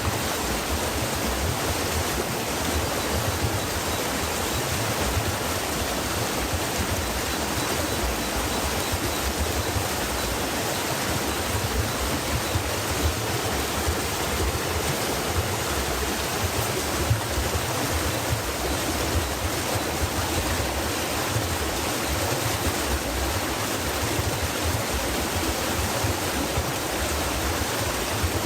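Stream water rushing and babbling over rocks, a steady, even flow.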